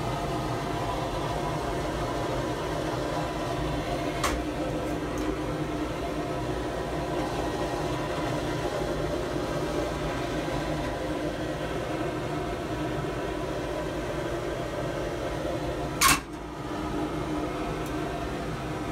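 Sandblast cabinet running, a steady mechanical drone, with a light tick about four seconds in and a sharp knock near the end.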